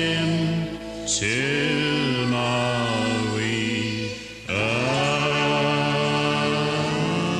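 Closing bars of a country song: a band with pedal steel guitar and voices holding long chords. The chords break off about a second in and again past four seconds, each time sliding up in pitch as they swell back in.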